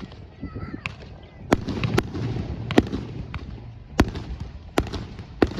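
Fireworks display: about six sharp bangs of bursting aerial shells, irregularly spaced, over a steady low rumble.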